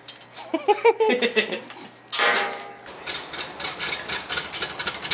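A man's wordless vocal sounds in the first half, loudest about two seconds in. After that comes a rapid, irregular clicking and rattling from a hand pallet jack moving a loaded pallet of boxes.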